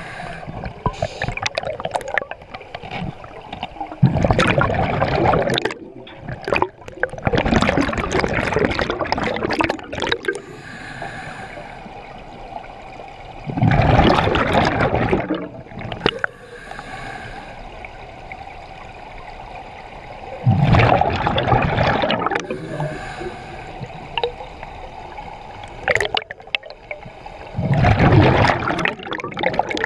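Scuba diver breathing underwater through an open-circuit regulator: loud bursts of exhaled bubbles every six or seven seconds, with a quieter hiss of inhalation through the regulator between them.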